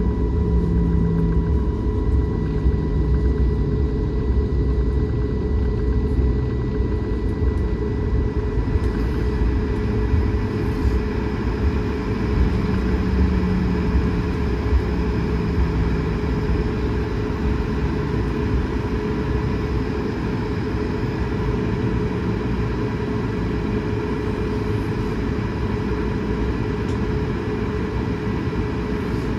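Cabin noise of an Airbus A220-100 taxiing after landing: a steady drone from its idling Pratt & Whitney geared turbofans with a constant hum and a thin high whine, over a low rumble from the rolling airframe.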